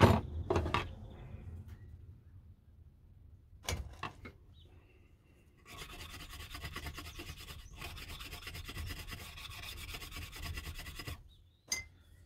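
Tools knocked down on a wooden bench at the start, then about five seconds of fast back-and-forth scrubbing on the steel blade of an old chisel, which stops abruptly near the end.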